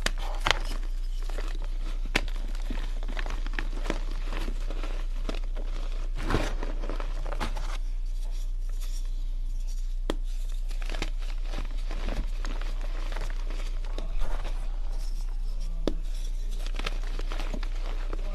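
Dyed gym chalk blocks crumbled and squeezed by hand in a bed of chalk powder: crunchy crackles and soft crumbling, busiest about six seconds in, with the loudest crunch about fourteen seconds in. A steady low hum runs underneath.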